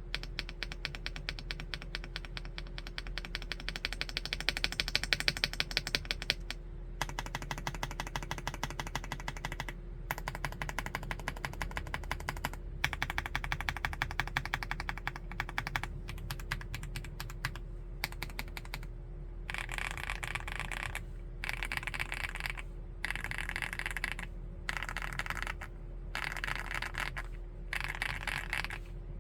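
Fast typing on a 75% mechanical keyboard with a plastic case: dense runs of keystrokes broken by brief pauses, turning into shorter separate bursts about two-thirds of the way through.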